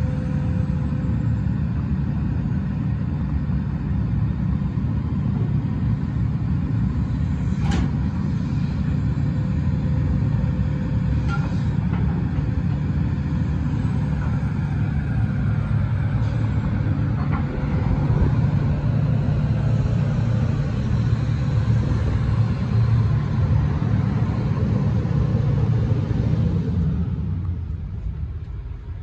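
Case CX350B excavator's diesel engine running steadily while its hydraulic boom, arm and bucket are worked, with a few sharp knocks along the way. Near the end the sound drops and turns duller.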